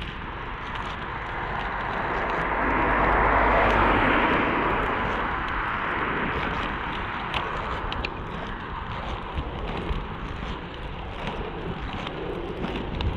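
A car passing on the road alongside, its tyre and engine noise swelling to a peak about four seconds in and then fading. Underneath runs the steady rumble of inline skate wheels rolling on asphalt, with wind on the microphone.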